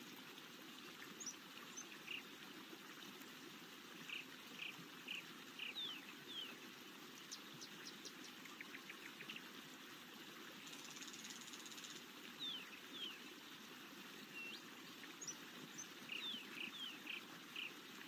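Faint steady rush of a forest stream, with small birds chirping in short repeated notes and quick downward-sweeping calls over it. A brief high buzzing trill comes about eleven seconds in.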